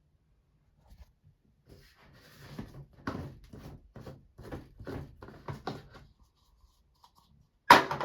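Washing machine knocking and clunking: a quick run of about a dozen knocks, roughly three a second, over a few seconds.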